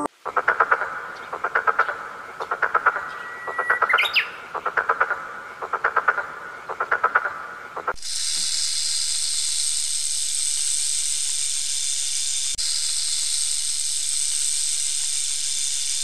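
Tree frog calling in short repeated trains of rapid, rattling croaks, roughly one train a second, with a brief rising whistle about four seconds in. About eight seconds in the croaking gives way to a steady high-pitched hiss.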